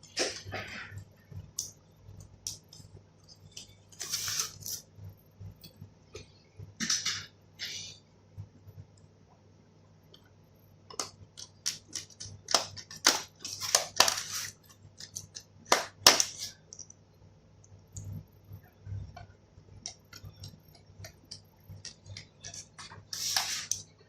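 Scattered plastic clicks, taps and short scrapes of a laptop's back cover being refitted and handled, with the loudest clicks coming in a cluster about midway through.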